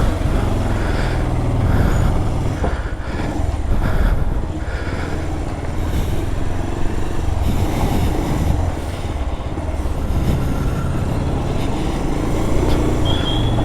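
Road vehicle noise: motor traffic running with a steady, heavy low rumble, and a short high tone near the end.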